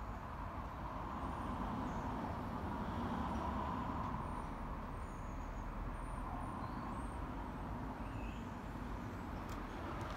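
Steady distant vehicle rumble, with faint short high chirps scattered above it.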